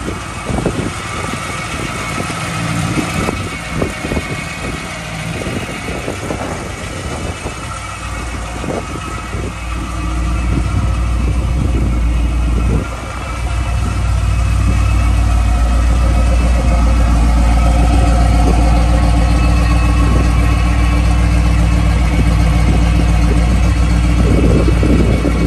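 1969 Chevrolet Camaro SS's V8 engine idling, uneven at first, then louder and steadier from about a third of the way in, with a brief drop shortly after.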